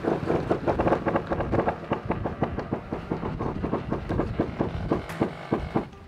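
Sailcloth of a catamaran's genoa fluttering in light wind: a rapid run of sharp, rhythmic flaps, several a second, that slows and stops near the end.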